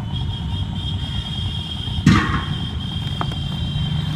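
Honda CB Twister 110cc single-cylinder engine idling steadily, its air filter removed to make it sound sportier, with a sharp knock about two seconds in.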